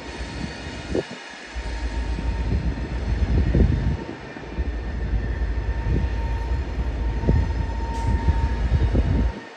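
Freight train of autorack cars rolling past, wheels running on the rails with a steady thin squeal and a few dull knocks. A deep rumble underneath drops out suddenly a few times.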